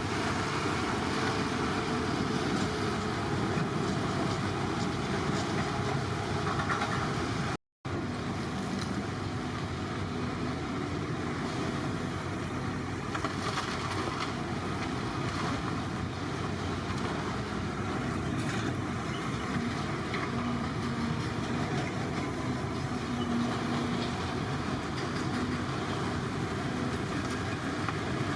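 Heavy construction machinery running steadily, with a brief drop to silence about eight seconds in.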